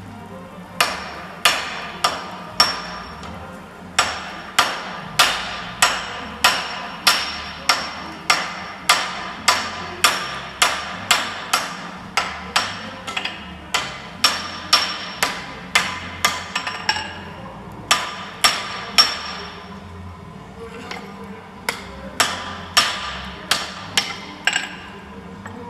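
Hammer blows on hot steel over an anvil, forge welding a steel bit into an axe head. The strikes come about two a second in runs with short pauses, each with a bright metallic ring.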